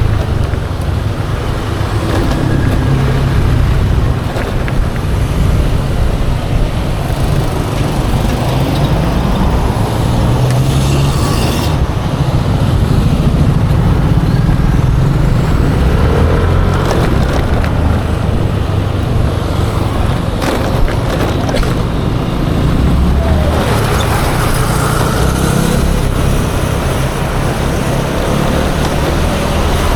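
Ride on a Yamaha Aerox 155 scooter: steady wind rumble on the microphone over the scooter's engine and surrounding road traffic, with a few rising engine whines as it speeds up.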